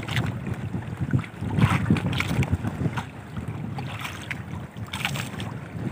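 Wind buffeting the microphone over water lapping and slapping against the side of a small fishing boat, with a few louder splashes.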